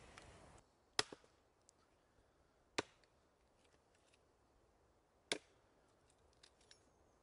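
The campfire's crackling hiss cuts off just after the start. Then come three sharp, separate chopping strikes of a hatchet into wood on a stump chopping block, about two seconds apart, with a few faint snaps and clicks between them.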